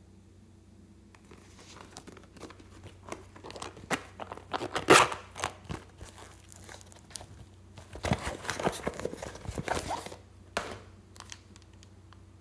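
Handling a glossy vinyl zip purse: a run of rasping strokes about four seconds in as its zipper is pulled open, then crinkling and rustling a few seconds later as items are taken out of it.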